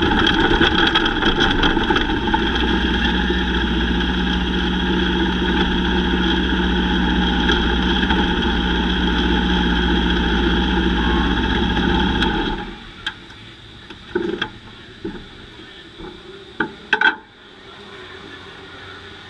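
Lightning sprint car engines running at a steady pitch, then stopping abruptly about twelve seconds in. A quieter background with a few short knocks follows.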